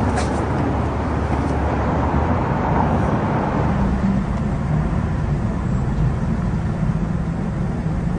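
Steady low rumble of outdoor street noise, with no distinct events.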